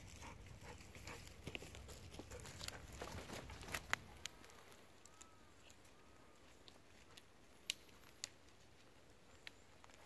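Footsteps through fallen cedar branches and dry leaf litter: dense crackling and snapping of dead twigs for the first few seconds, then a few single sharp snaps.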